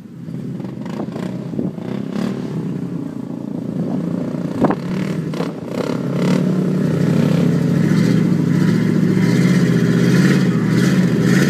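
Lifted pickup truck's engine running, getting louder and working harder from about six seconds in as it pulls a stuck Polaris RZR 800 out of mud and water. A few knocks and clatters in the first half.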